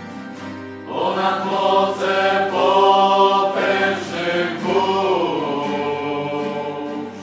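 Choir singing a slow Christian song, the voices swelling about a second in and holding long notes over a soft, regular accompaniment.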